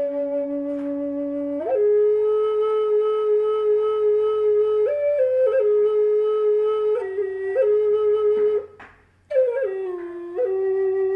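Solo flute music: slow, long held notes stepping between a few pitches, with a short pause for breath about nine seconds in.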